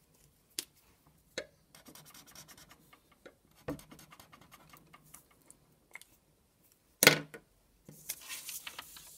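Felt-tip highlighter scratching across paper in quick back-and-forth shading strokes. About seven seconds in there is a sharp knock, and near the end a brief rasping rub.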